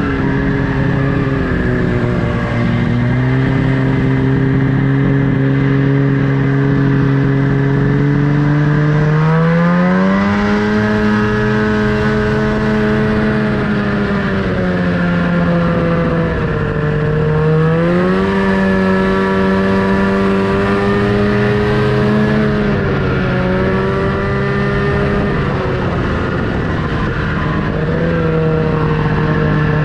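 Snowmobile engine running under way, its pitch climbing sharply as the throttle opens about a third of the way in and again a little past halfway, sagging in between and falling back near the end, over a steady rough rush.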